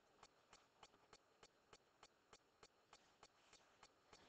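Near silence, with a faint, even ticking about three times a second.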